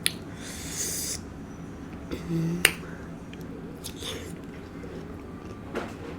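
Mouth sounds of someone eating: a few sharp lip smacks and clicks, the loudest about two and a half seconds in, just after a short hum. There is a brief rustle near the start.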